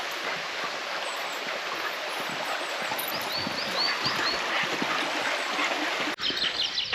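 Rushing stream water, a steady hiss, with a few small birds chirping about halfway through. The sound breaks off sharply near the end and comes back with more quick chirps.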